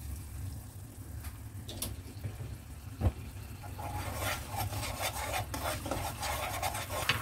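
Silicone spatula stirring a watery tomato sauce in a nonstick wok, scraping and sloshing over a low sizzle as water is mixed into the sauce. One sharp knock about three seconds in, and the stirring grows busier from about four seconds in.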